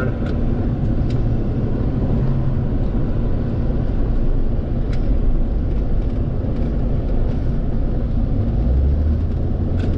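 Car on the move, heard from inside: a steady low rumble of engine and road noise.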